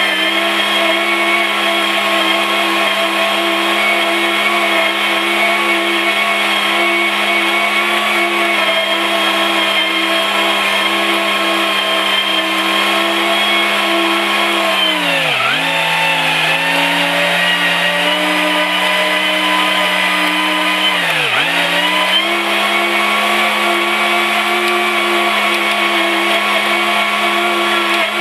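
New Holland Boomer 50 compact diesel tractor running under load, driving its three-blade PTO rotary cutter through tall grass: a loud, steady high-pitched whine. About halfway through, and again about six seconds later, the pitch dips sharply and comes back up.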